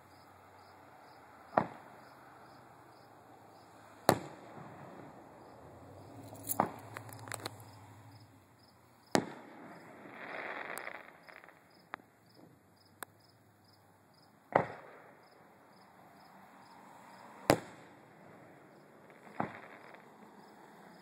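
Distant aerial firework shells bursting: about nine sharp bangs a few seconds apart, each trailing off, one followed by a short crackle. Crickets chirp steadily underneath.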